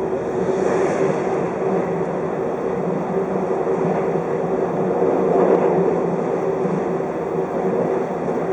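A JR 583 series electric train running, heard from inside the passenger car: a steady rumble of wheels on rail with a constant low hum.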